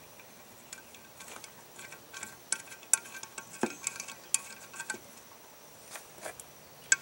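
Scattered light metallic clicks and clinks as metal studs are screwed by hand into a Weber carburetor adapter plate on an intake manifold.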